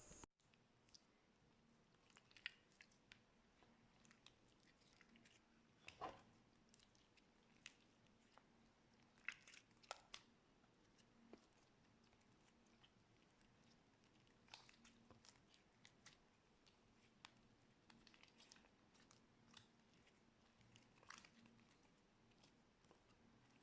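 Faint, scattered crackles and soft clicks of slime being pressed and squished by hand, with the strongest pops about six and ten seconds in.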